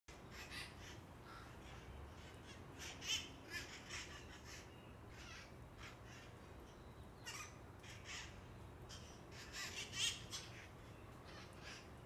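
A flock of feral red-masked parakeets (cherry-headed conures) giving many harsh, screeching squawks in quick succession. The loudest calls come about three seconds in and again near ten seconds.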